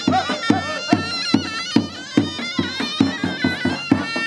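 Live zurna and davul playing a folk dance tune. The shrill double-reed pipe carries a wavering, ornamented melody over steady bass-drum beats, about two or three a second.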